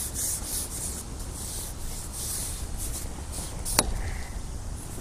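Fishing pole rubbing against its rest in a rapid run of short rasping strokes while a hooked carp is played on the pole elastic. The strokes thin out after about three seconds, and there is one sharp click just before four seconds, over a low rumble.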